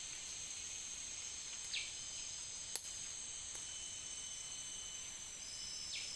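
Steady chorus of insects, crickets among them, a continuous high-pitched ringing at several pitches, with a few short chirps and one sharp click about three seconds in.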